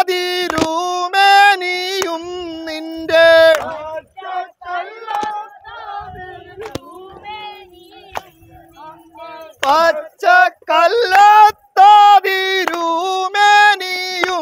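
Vanchipattu, the Kerala snake-boat song, sung by a group of voices in long held, wavering notes. It drops to a quieter stretch in the middle, and the loud group singing returns near the end.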